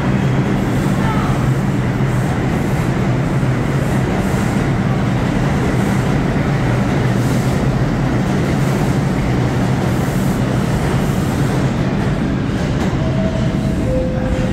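NYC subway train of R62 cars pulling into an underground station and slowing to a stop: a steady rumble of wheels on rail with a low motor hum that thins out near the end. A two-note falling door chime sounds just before the end.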